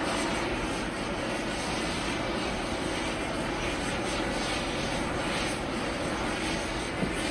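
Steady noise of a large aircraft's engines running, an even rush with a low hum, unchanging throughout.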